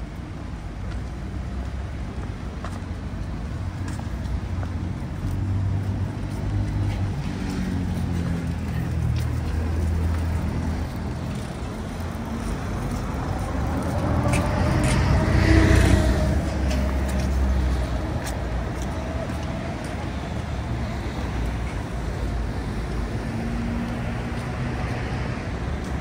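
City road traffic: a steady low rumble of passing vehicles. About midway one vehicle passes close, the sound swelling and its pitch dropping as it goes by.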